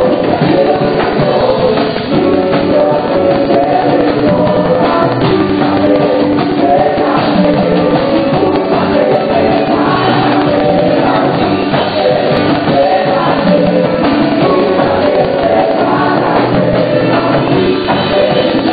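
Live gospel praise-and-worship music, loud and continuous: a woman sings lead into a microphone with other voices joining in, over a band of keyboard and percussion.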